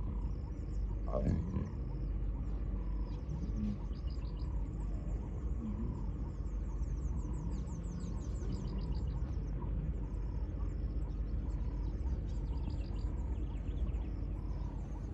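Outdoor bush ambience: a bird repeats a short call roughly once a second, with high chirping, over a steady low rumble. A brief louder rising sound comes about a second in.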